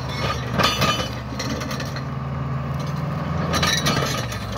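Case crawler dozer's diesel engine running steadily under load as its rear ripper tooth tears through solid rock, with bursts of rock cracking and clattering, once about half a second in and again about three and a half seconds in.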